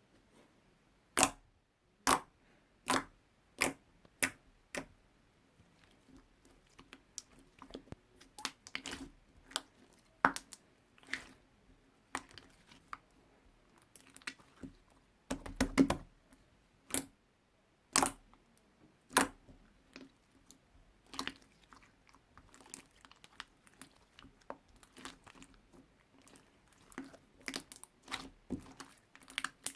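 Slime being pressed and squeezed by hand, giving sharp clicking air pops. They come about once a second at first, then in a denser irregular run, with a louder crackling burst around the middle.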